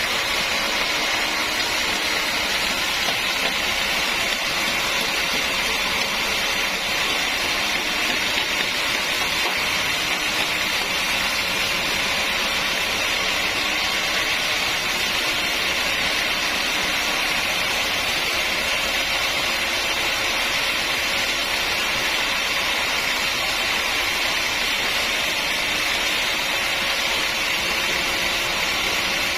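Sawmill machinery running steadily with an even, unchanging noise.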